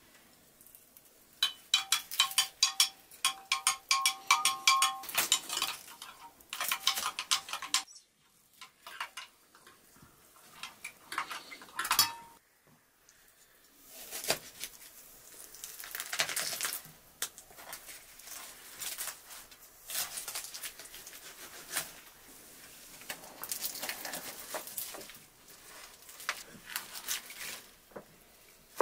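A metal spoon stirring a jug of white drink, clinking rapidly against its side with a ringing note for a few seconds near the start, and a few more clinks after that. Later come softer tearing and rustling noises as hands pull apart a roast turkey.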